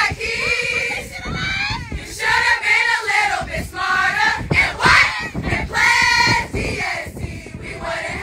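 A crowd of young women chanting and shouting together in loud, short phrases, a little quieter near the end.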